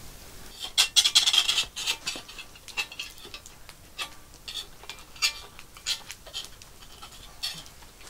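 A metal utensil scraping and clicking against the inside of a Petromax cast-iron Dutch oven, loosening the baked cinnamon rolls. A quick run of rasping scrapes comes about a second in, then single scrapes and taps every half second or so.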